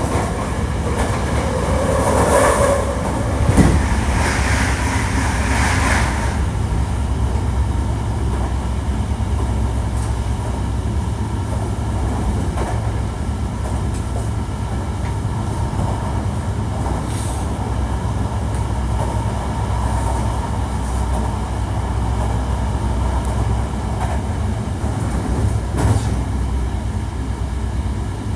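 Hankyu 1300 series electric train with Toyo IGBT inverter drive running along the line: a steady low rumble of wheels on rail. A higher tone sits above it for the first six seconds, and there are single thumps at about three and a half seconds and near the end.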